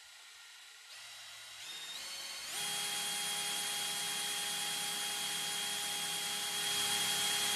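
Electric drill spinning the input of a 3D-printed fluid coupler, its motor whine stepping up in speed about one, two and two and a half seconds in, then holding steady at the drill's top speed.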